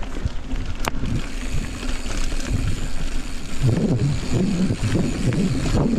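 Mountain bike riding down a dirt singletrack: tyres rolling over the dirt and wind buffeting the microphone, getting heavier about three and a half seconds in, with one sharp click about a second in.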